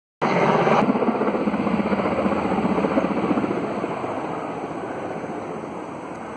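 Low-flying military helicopter passing near: rotor beat and turbine noise, loud at first, then fading away steadily over the last few seconds.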